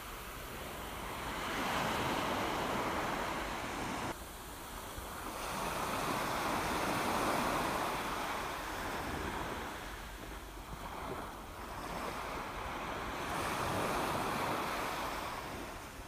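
Sea water surging in a rockpool as waves wash in, heard by a submerged camera: a rushing hiss that swells and fades in slow surges, with a sudden drop about four seconds in.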